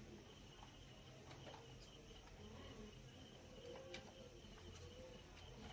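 Near silence: faint room tone with a steady high-pitched background hum and a few soft clicks.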